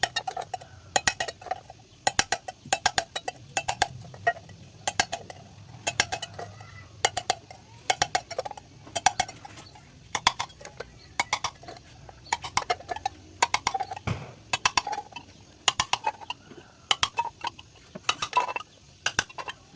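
Sharp metallic clicks and clinks in quick clusters, about once a second, from hand tools working the thin sheet metal of a tin can to make a strainer disc.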